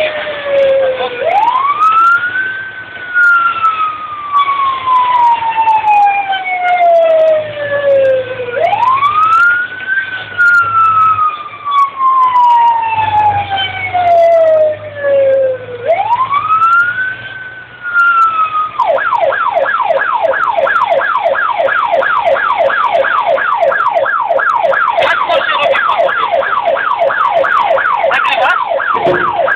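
Emergency vehicle's electronic siren, loud, first on a slow wail that rises quickly and sinks slowly three times, then switching about two-thirds of the way through to a fast yelp of several sweeps a second.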